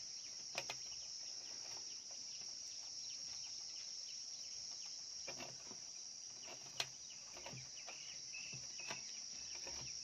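Faint small clicks and rustles of stripped copper wire strands being twisted together by hand to splice a wire, over a steady high-pitched drone. One sharper click comes about two-thirds of the way through.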